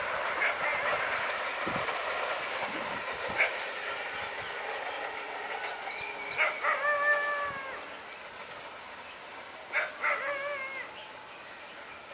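Diesel-hauled passenger train moving away, its rumble fading steadily over the first several seconds. About halfway through and again near the end, a dog gives a short yelp followed by a drawn-out, whining cry about a second long.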